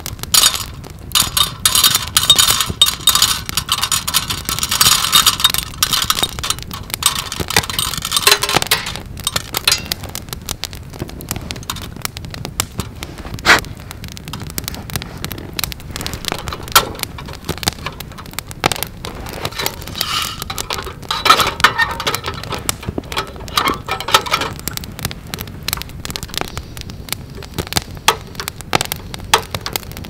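Clicks and rattling of a stainless-steel mesh coffee roaster being handled at its hatch, over a crackling campfire. The rattling is dense for about nine seconds, thins to scattered clicks, and picks up again around twenty seconds in.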